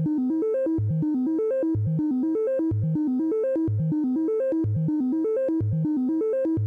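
Yamaha CS-30 analogue synthesizer playing a fast repeating pattern of short notes, with a low bass note coming round about once a second.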